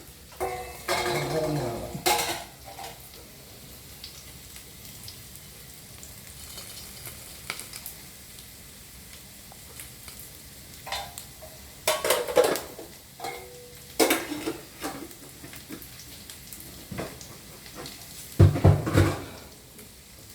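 Spatula stirring and scraping in a frying pan in several short bouts, mixing in just-added salt and chili powder, with a faint steady sizzle of frying food between them.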